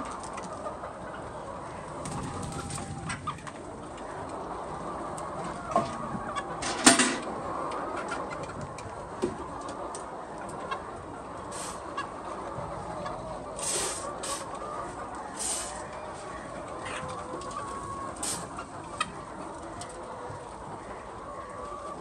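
A flock of chickens clucking throughout, with scattered sharp clicks or knocks, the loudest about seven seconds in.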